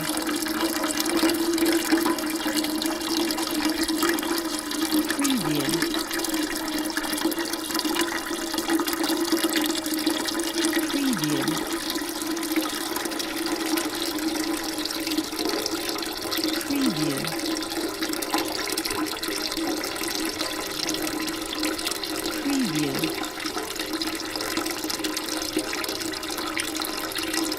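Water pouring steadily into a bucket, a continuous rushing splash. About every six seconds a short low sound falls in pitch beneath it.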